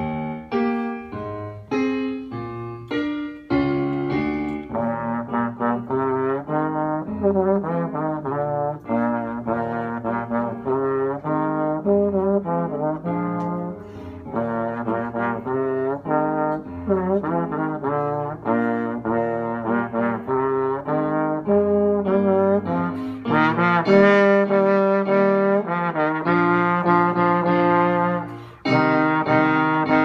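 Slide trombone played solo: a few short, detached notes at first, then a continuous melodic passage with occasional slide glides between notes, growing louder about two-thirds of the way through.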